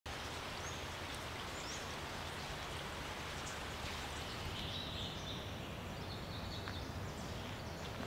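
Steady rush of flowing creek water, with a few short, high bird calls over it.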